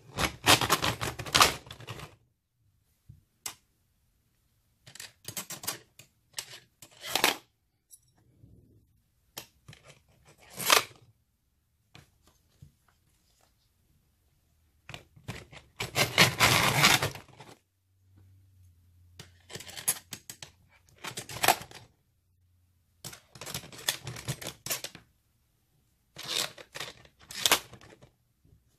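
Nissan Leaf lithium battery modules in metal cases and their spacers being slid down threaded rods and set onto a stack: bursts of clicking, scraping and clattering every few seconds, with quiet gaps between.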